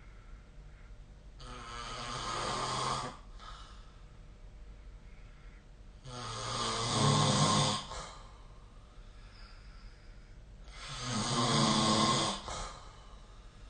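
A sleeping person snoring: three long snores about four and a half seconds apart, each swelling to its loudest near the end and then cutting off.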